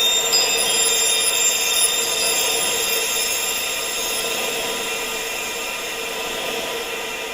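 Wind chimes ringing: many high tones held together over a steady wind-like hiss, a couple of new high tones coming in within the first second, the whole growing slowly quieter.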